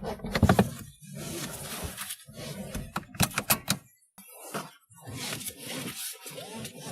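Car seatbelt webbing being pulled out of its retractor in a series of long rasping pulls, with a cluster of sharp clicks and rattles about three seconds in.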